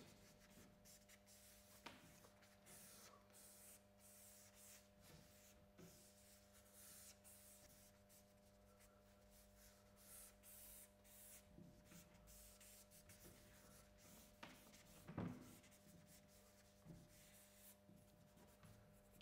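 Faint scratching and rubbing of a charcoal stick on paper as drawing strokes are made, many short strokes one after another, over a low steady hum.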